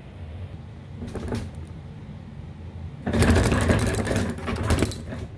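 Loose hard objects rattled and clattered while someone rummages through them for a knife: a short rattle about a second in, then a louder, rapid clatter for about two seconds.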